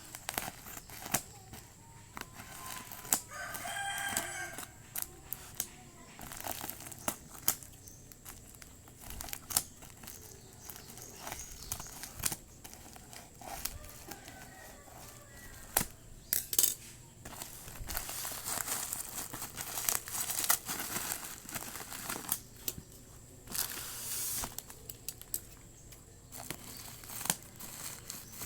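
Packaging crinkling and tearing as a parcel is unwrapped. A rooster crows in the background about three seconds in, and again more faintly around fourteen seconds in.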